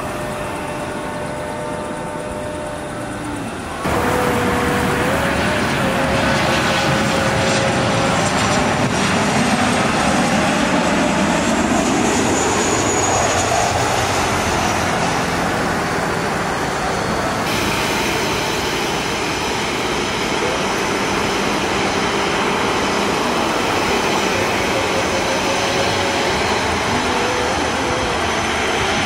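Boeing 737 airliners' turbofan engines running on the runway: steady jet engine noise with a steady whine. The sound steps up louder about four seconds in and changes again at about 17 seconds as the footage cuts between aircraft.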